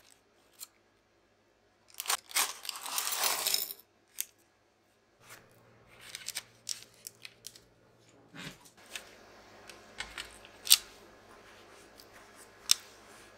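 Parchment paper crinkling and aluminium tart weights rattling as a paper liner full of weights is lifted out of a blind-baked tart shell, in a dense burst about two seconds in. After it come scattered light clicks and knocks over a faint steady hum.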